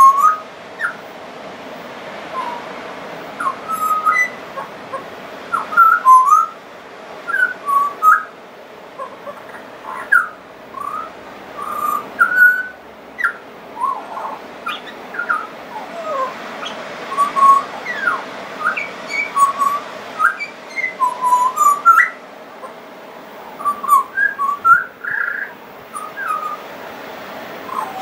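Pied butcherbird singing: a long, unbroken run of short, clear fluting whistles, many sliding up or down in pitch, separated by brief pauses.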